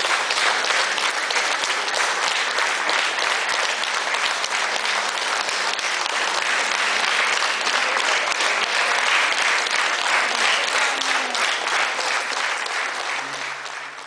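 Audience applauding steadily, a dense crowd of clapping hands that dies away near the end.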